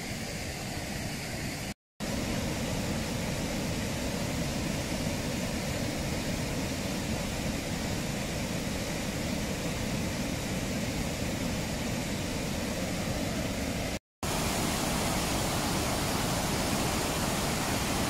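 The River Clyde in spate after heavy rain, rushing over rapids and falls in a steady, even wash of water noise. The noise cuts out twice for a split second, about two seconds in and again around fourteen seconds.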